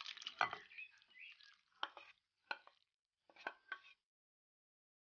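Chopped fruit and juice poured from a ceramic dish into a bowl of fruit salad: a brief splashy pour, then about five separate wet plops as pieces slide off into the bowl, stopping about four seconds in.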